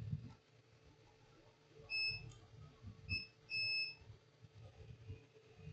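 Three short electronic beeps from bench equipment, about two, three and three and a half seconds in, the last one a little longer, with faint handling noise between them.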